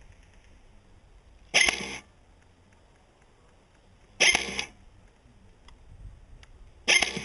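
G&G GR25 electric airsoft DMR firing three single shots about two and a half seconds apart, each a short, sharp mechanical burst.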